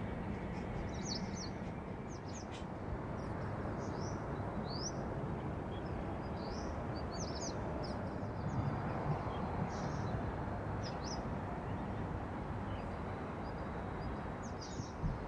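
Small birds chirping in short, scattered calls over a steady low rumble of distant airport and aircraft noise.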